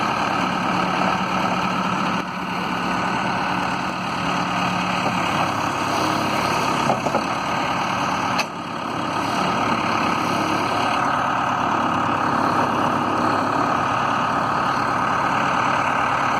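Case 580L Series 2 loader backhoe's four-cylinder diesel engine running steadily, with a brief dip in level about eight seconds in.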